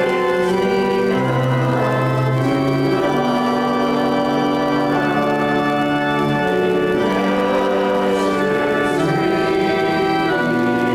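Church organ playing a hymn, with held chords over a bass line that moves every second or so.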